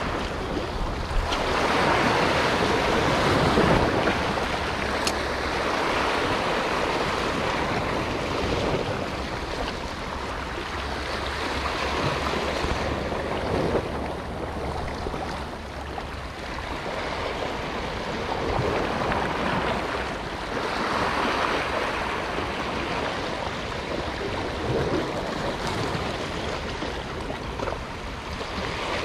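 Sea waves washing over the rocks of the shoreline, the surf swelling and easing every few seconds.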